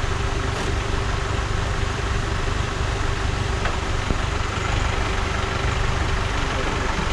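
Off-road vehicle's engine running steadily with a low rumble and a faint constant hum.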